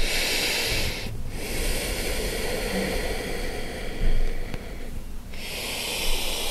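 Slow, deep breaths, heard as long hissing stretches of air a few seconds each, with short pauses about a second in and about five seconds in.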